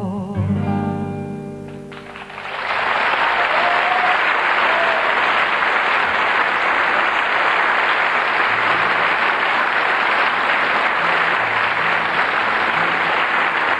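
The final acoustic guitar chord rings and fades, then a concert audience breaks into steady, loud applause about two seconds in.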